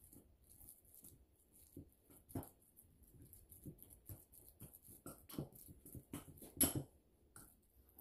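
Fork mashing cooked sweet potato in a glass bowl: irregular soft taps and squishes of the fork against the glass, coming faster from about five seconds in, the loudest a little before the end.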